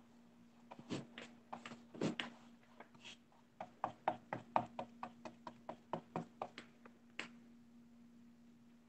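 Wide flat paintbrush dabbing and stroking black paint onto a stretched canvas: a run of quick, irregular soft taps, thickest at about three or four a second in the middle, stopping about seven seconds in.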